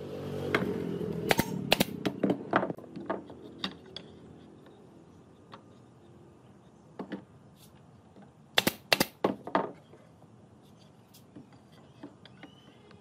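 A steady machine hum dies away over the first second or so. Through it and after it come sharp knocks and clicks in two clusters: a run in the first few seconds, then a tight group about eight and a half to nine and a half seconds in.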